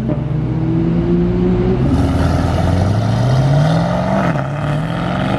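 Performance car exhaust as a sedan pulls away and accelerates hard: the engine note climbs in pitch, drops briefly at an upshift a little over four seconds in, then climbs again.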